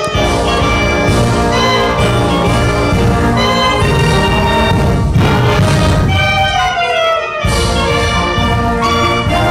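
High school concert band playing, woodwinds and brass holding sustained chords that move from one to the next every second or so, with a short break between phrases about seven seconds in.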